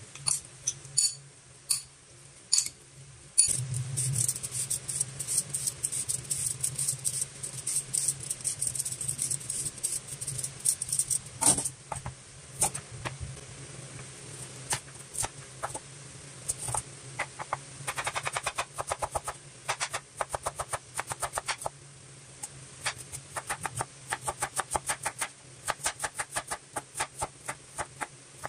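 Large kitchen knife slicing a carrot on a wooden cutting board: runs of quick, crisp chops, several a second, broken by short pauses. Near the start, a few separate clinks from raw pork being stirred in a ceramic bowl.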